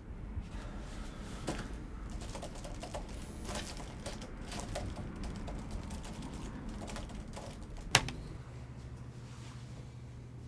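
Computer keyboard typing: quick irregular key clicks, then one sharp loud click about eight seconds in, after which a steady low hum remains.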